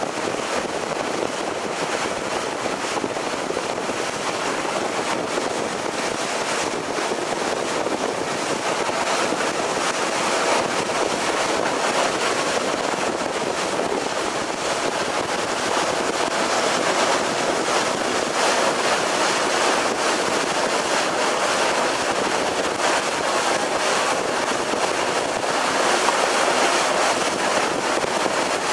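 Steady rush of wind and water heard from a moving boat, with wind buffeting the microphone.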